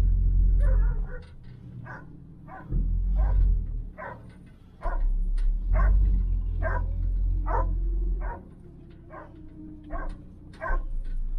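A dog barking over and over, roughly two barks a second, over the low rumble of the 1972 Chevy Nova's engine, which swells and drops back in stretches as the car is driven slowly.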